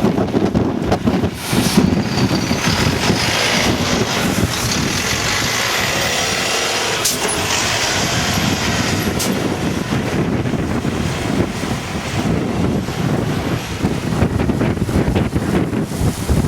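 A motor vehicle running over a steady rush of noise, with a few faint rising whines in the first few seconds and two sharp clicks later on.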